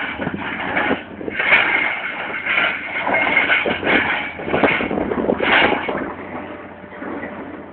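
Stones being unloaded, tumbling and clattering against each other in a dense run of knocks and rattles that eases off near the end.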